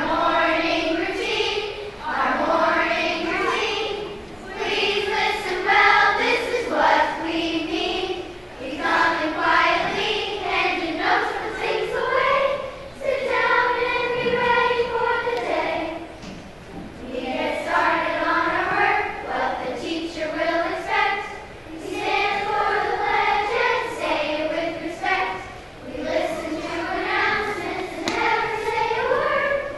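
A children's choir singing together, in phrases separated by brief pauses.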